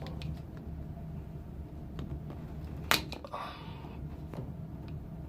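Hand cutting tool working at a plastic furnace condensate drain line: scattered sharp clicks, with one loud snap about three seconds in followed by a short scraping rasp, over a steady low hum.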